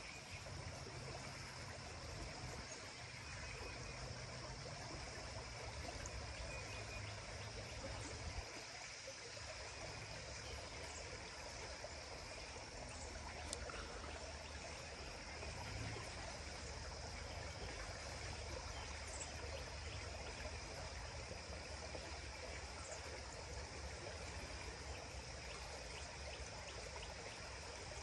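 Water running steadily in a stream, with a steady high insect hum over it and a low rumble underneath. A few faint, short high chirps come through now and then.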